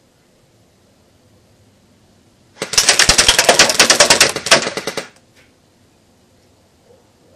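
Cybergun Thompson M1A1 airsoft electric gun firing one full-auto burst of about two and a half seconds: a fast, even stream of shots from the gearbox cycling, stopping abruptly.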